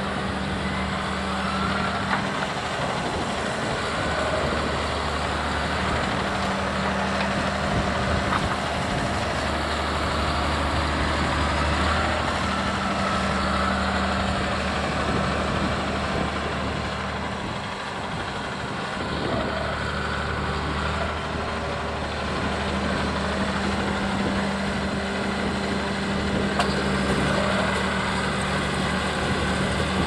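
John Deere 6170R tractor's six-cylinder diesel engine running steadily at a low 1500 rpm under the load of ploughing. The engine note dips briefly about halfway through.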